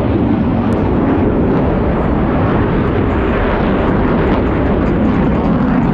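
Jet engines of a Blue Angels formation of Boeing F/A-18 Super Hornets flying a barrel roll break: loud, steady jet noise.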